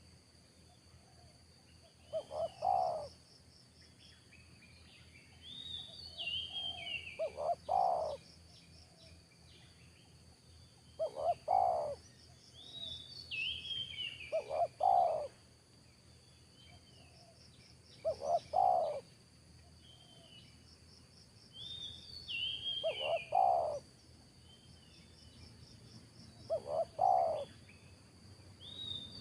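Spotted dove cooing: seven phrases, each about a second long, repeated every four seconds or so. Short, higher chirps from other birds fall between the phrases, over a steady high insect-like drone.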